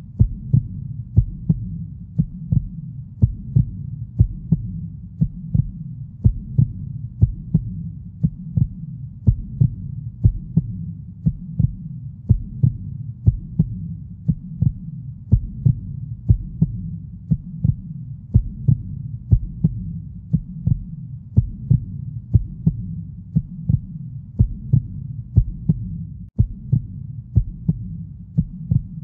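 Heartbeat sound effect: steady, evenly spaced low thumps over a continuous low hum.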